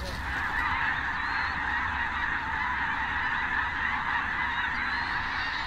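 A large flock of snow geese calling: a dense, steady chorus of many overlapping honks with no pauses.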